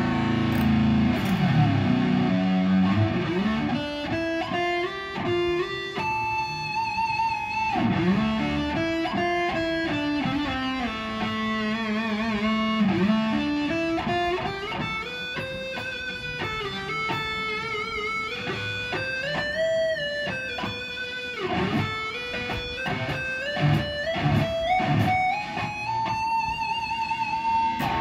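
Rebuilt, rewired Ibanez electric guitar played as a lead solo: single long-held notes with vibrato and string bends that glide up and back down, with a stretch of quick picked notes toward the end.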